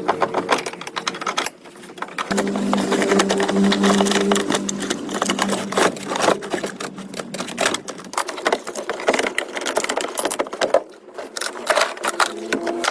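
A small electric machine running, with a steady motor hum under fast, dense ticking; it drops away briefly about a second and a half in and again near the end.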